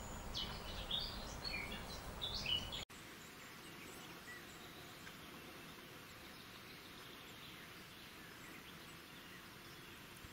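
Several short, varied bird chirps over a low outdoor rumble, cut off abruptly about three seconds in. After that, only a faint steady outdoor hiss.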